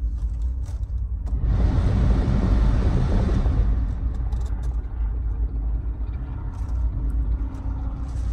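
Car engine idling with a steady low rumble, heard inside the car's cabin. About a second and a half in, the air-conditioning blower comes on with a rush of air, loudest for a couple of seconds, then settling to a softer steady hiss.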